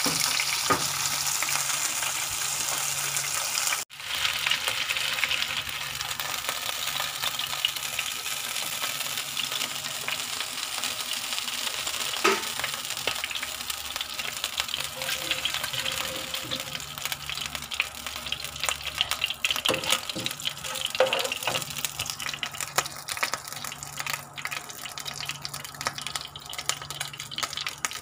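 Hot oil sizzling and crackling in a frying pan as a whole fish fries with slices of ginger. The sizzle breaks off for an instant about four seconds in, and a few sharp knocks come through it, the loudest about twelve seconds in.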